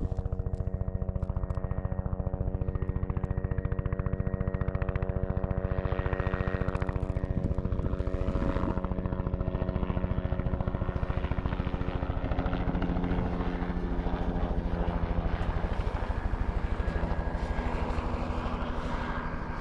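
Helicopter flying close by: a steady, rapid chop of rotor blades over the hum of its engine.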